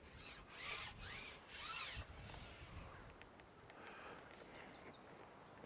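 Carbon fishing pole sliding through the angler's hands as he ships it out over the water: three soft rubbing swishes in the first two seconds, then only faint background with a few light ticks.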